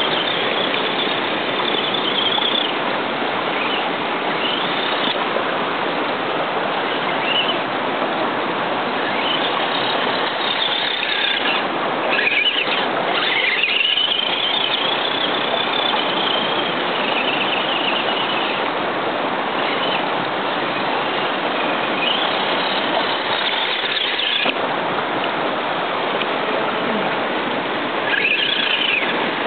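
Creek water rushing steadily, with the high whine of a radio-controlled truck's electric motor rising and falling again and again as it is throttled through the water.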